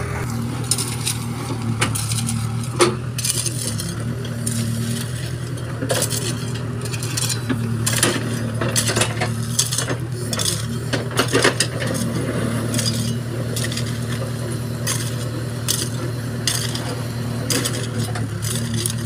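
Backhoe loader's diesel engine running steadily, with crushed stone clinking and scraping in many short sharp clicks as it is spread and levelled by the bucket and a shovel.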